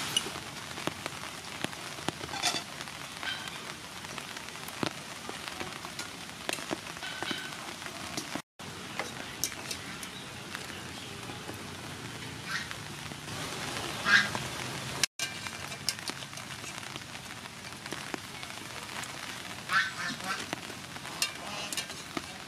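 Ducks quacking now and then over a steady hiss, with small clicks and taps from kitchen utensils.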